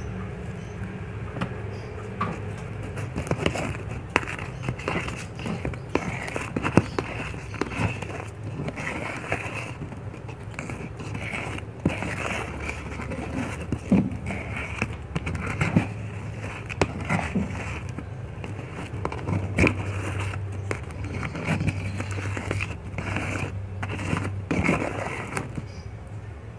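A silicone spatula stirs a thick paste of toothpaste and powder and scrapes it round a plastic cup. It makes a run of irregular scrapes and sticky clicks.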